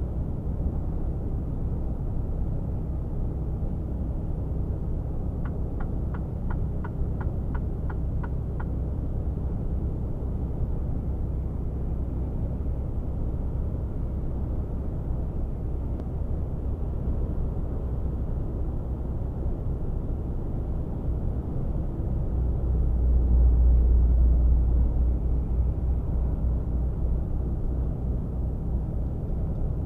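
Mercedes-Benz Actros 1848 truck's inline-six diesel engine and road noise heard inside the cab at highway speed, a steady low drone. About six seconds in comes a run of about ten quick, even ticks lasting some three seconds, and about 22 seconds in the drone swells louder for a few seconds before settling back.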